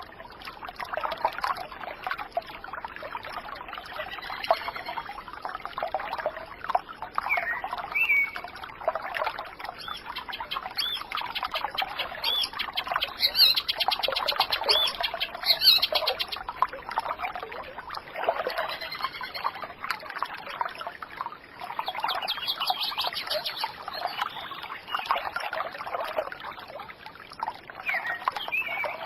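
Water trickling and babbling continuously, with birds chirping and calling over it; the chirping is busiest about halfway through.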